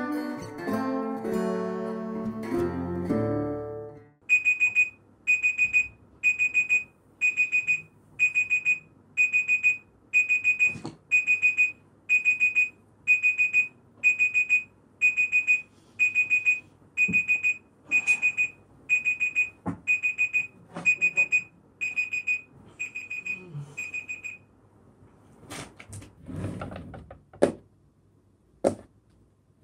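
An electronic alarm beeping: a steady run of high, loud beeps repeating about every 0.7 s for some twenty seconds, then stopping. It is preceded by a few seconds of plucked-string music. Near the end come a few knocks and rattles of a drawer being rummaged through.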